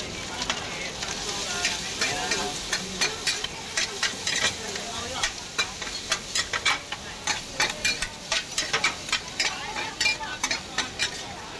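Two metal spatulas scraping and clacking against a large hawker wok in quick, irregular strokes, over a steady sizzle of food frying in oil.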